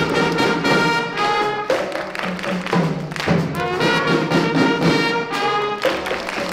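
A children's school marching band playing a tune: brass instruments carrying the melody over strong drum hits every second or two.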